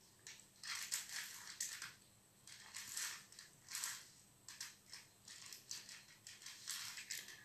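Plastic Rubik's cube layers being turned by hand, a series of irregular quick clicking and scraping turns as an edge piece is moved into place.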